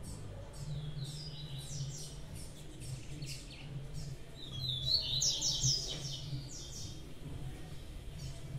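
Blue-black grassquit (tiziu) chirping: a run of short, high chirps, busiest about halfway through, over a low steady hum.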